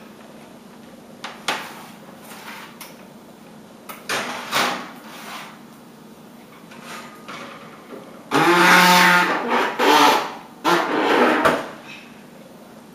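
Oven door and baking pan being handled as the pan goes into the oven: scattered knocks and clicks, then louder metal scraping and clatter, with a short squeak, from about eight seconds in.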